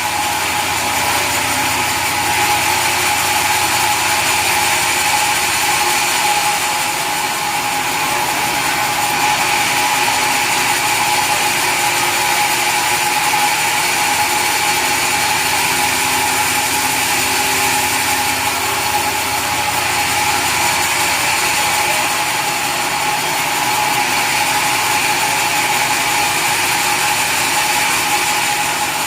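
Sawmill saw machinery running steadily with a constant whine, without clear breaks or changes.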